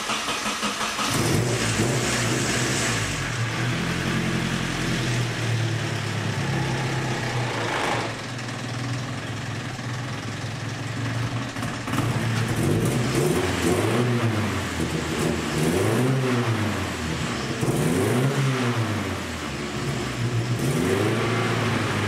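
Nissan KA24DET turbocharged 2.4-litre four-cylinder in a Datsun 510 running at a steady idle, then revved in short throttle blips about every two seconds through the second half. The engine runs sealed on new turbo and wastegate gaskets, with no obvious exhaust leak.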